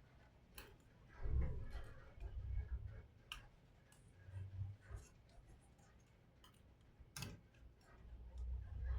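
Faint, scattered clicks and taps of a laptop's small plastic and metal parts being handled during repair, with soft low thumps of handling in between.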